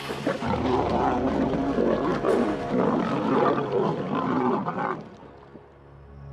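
Lions growling as they feed together on a carcass, loud and continuous, cutting off suddenly about five seconds in. Soft music runs underneath and carries on alone after the growling stops.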